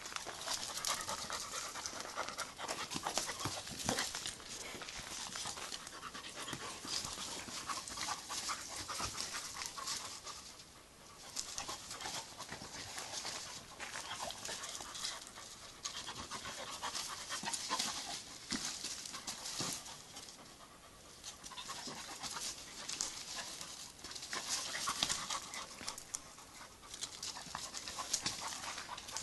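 A dog panting fast and hard during rough play, in quick breathy puffs with a couple of short lulls.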